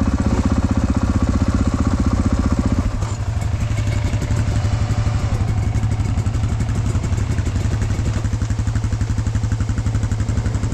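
KTM 450 four-stroke enduro bike idling with a steady, even firing pulse, alongside other dirt bikes idling. About three seconds in, some of the deeper engine sound drops away while the idling continues.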